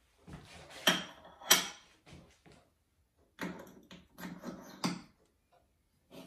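Metal workshop tools being handled on a steel bench plate: two sharp, ringing metallic clinks about a second in, then the steel cylindrical fixture scraping and sliding on the plate, ending in a knock.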